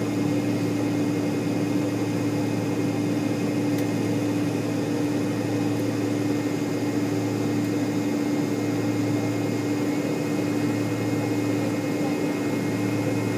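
Steady cabin hum of an MD-80 airliner taxiing at idle, with a strong constant tone over even rushing noise.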